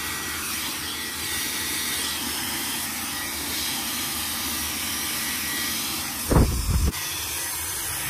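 Counterfeit Dyson Supersonic-style hair dryer blowing, a steady airy hiss with a faint thin whine. A little past six seconds in there is a brief, loud low rumble.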